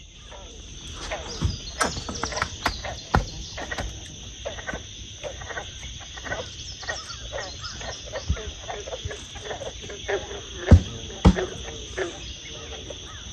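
Evening swamp chorus: insects hold a steady high drone while frogs call in many short clicks and croaks. Two louder sharp knocks come about three-quarters of the way through.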